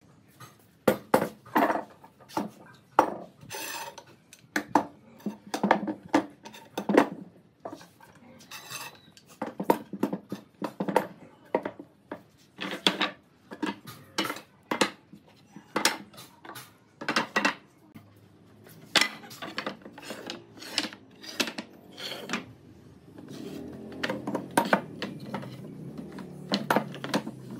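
Wooden pine boards knocking and clattering against each other and on a wooden workbench as they are handled and stacked, many sharp irregular clacks. A low steady hum comes in near the end.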